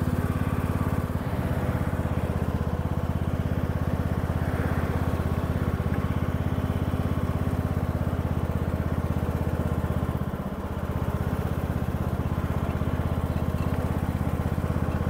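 John Deere S110 riding lawn mower's engine running steadily with an even pulse, dipping slightly about ten seconds in.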